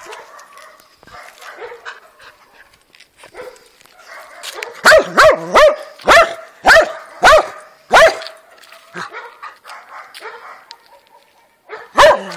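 A dog barking at a hedgehog: a quick run of about eight sharp barks over some three seconds, each falling in pitch, then one more bark near the end.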